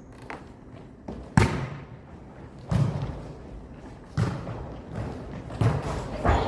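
A volleyball thudding as it is hit or bounced, four or five dull knocks about one and a half seconds apart, with a short echo after each.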